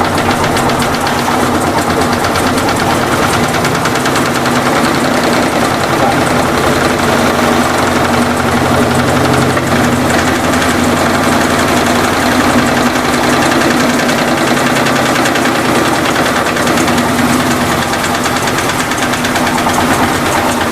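Electrolux LT15F top-loading washing machine spinning, with a steady hum and a fast, continuous knocking rattle. The rear suspension rod is rocking inside its support cup, which looks worn, and this makes the loud spin-cycle racket.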